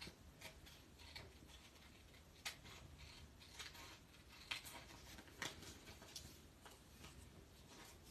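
Small craft scissors snipping the patterned paper glued to an envelope flap, trimming it flush with the edge: a run of faint, irregular snips, roughly one a second.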